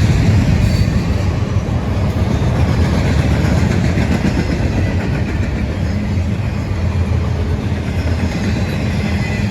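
CSX freight train rolling past, a steady heavy rumble of wheels on the rails.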